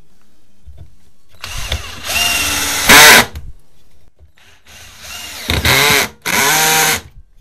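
Ginour 12 V cordless drill driver with a Phillips bit driving a small screw into pallet wood. The motor whine rises in pitch as it speeds up, in two spells: about a second and a half in, and again from about five seconds in, briefly stopping near the end.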